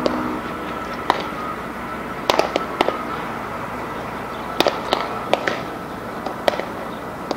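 Baseballs smacking into leather gloves during a game of catch: a series of sharp pops at irregular intervals, some in quick pairs.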